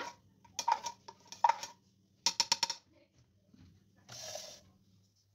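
Metal spoon stirring sesame and oil in a plastic cup, scraping and clicking against its sides in several quick bouts of strokes, then a short scuffing noise about four seconds in.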